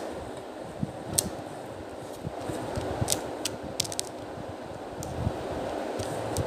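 Light clicks and taps from hands handling something close to the microphone, about a second in and several more around three to four seconds in, over a steady fan-like hum.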